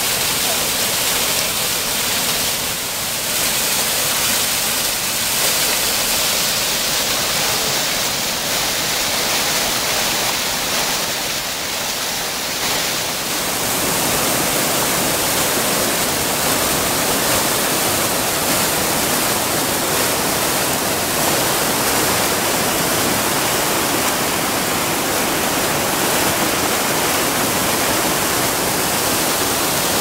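Water pouring out through the wheel of a water-powered sawmill and cascading down its stone foundation into a rocky river: a steady rush of falling water, growing fuller and deeper about halfway through.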